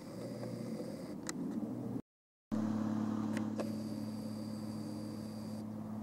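Steady low mechanical hum with a faint high whine. Both cut out completely for about half a second two seconds in, then resume.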